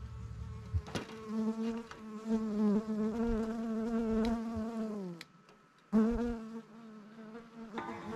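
A honeybee buzzing close to the microphone, its pitch wavering as it flies about, sinking and fading about five seconds in, then coming back about a second later. A sharp click about a second in.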